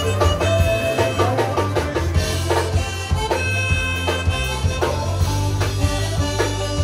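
Zydeco band playing: drums keep a steady beat under a heavy bass line and a held melody.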